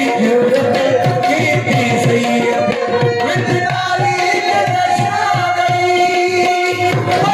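Harmonium playing the melody of a Sufi folk song over a held drone, with a hand drum keeping a steady beat of about three strokes a second.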